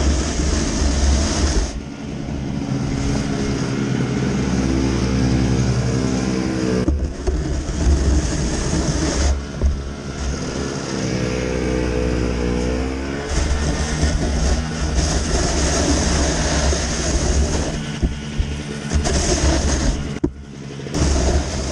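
Toro single-stage snowblower's small engine running under load, its pitch rising and falling as it clears the driveway. The sound breaks off briefly a few times.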